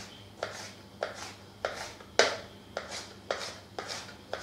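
Kitchen knife slicing a red bell pepper into thin strips on a wooden cutting board. Each cut ends in a sharp knock of the blade on the board, evenly paced at about two a second.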